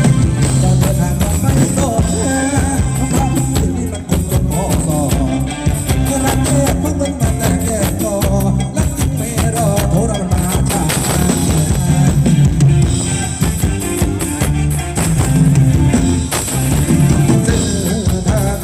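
A live band plays loud Thai ramwong dance music, with a steady drum-kit beat and a singing voice over it.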